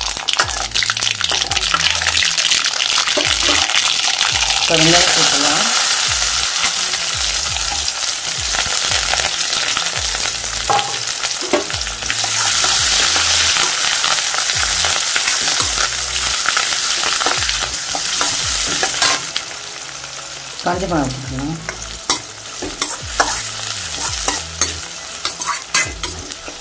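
Hot oil sizzling in a kadai as a tempering of mustard seeds and urad dal is fried and stirred with a spoon, with small clicks from the stirring. The sizzle swells sharply about five seconds in and again around twelve seconds, then dies down over the last several seconds.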